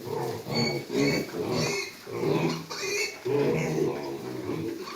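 Pigs grunting over and over, several short pitched grunts a second.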